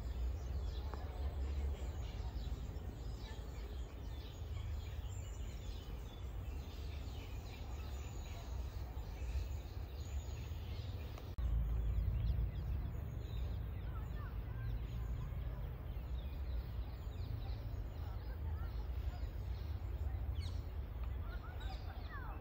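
Outdoor park ambience: birds chirping and calling in short scattered notes over a steady low rumble, which gets louder about eleven seconds in.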